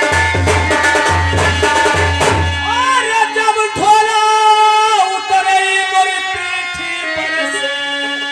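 Folk stage music: deep drum beats about twice a second over a steady held tone, stopping about two and a half seconds in, then a voice sings long held notes over steady instrumental accompaniment.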